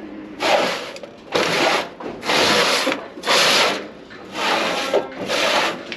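Six rough scraping strokes with short gaps between them, each about half a second long: something being dragged or rubbed against a hard surface.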